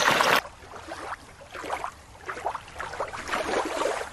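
Rushing stream water that cuts off about half a second in, giving way to quieter, muffled underwater ambience of moving water.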